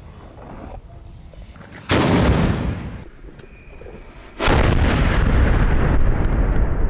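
Two ceremonial cannon shots about two and a half seconds apart. The first dies away within a second, and the second rings on loudly for several seconds.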